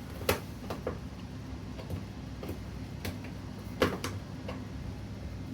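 A screwdriver prying at the wire spring clamp ring that holds a front-loading washer's door gasket to the drum, giving scattered light clicks and taps; the sharpest come about a third of a second in and just before four seconds in.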